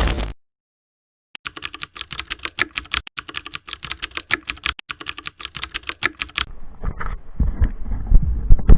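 Rapid, irregular clicking of keys being typed on a keyboard, starting after a second of dead silence and lasting about five seconds. Wind-like rumbling noise rises near the end.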